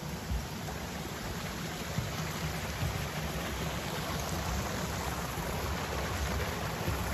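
Water rushing over a small river weir: a steady, even rush of white water that grows slightly louder.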